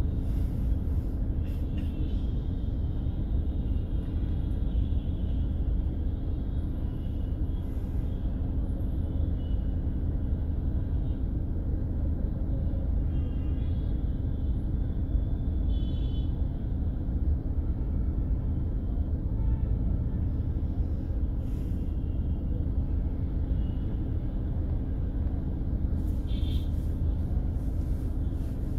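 A moving road vehicle: a steady low rumble of engine and road noise with a constant hum, and brief faint higher-pitched sounds now and then.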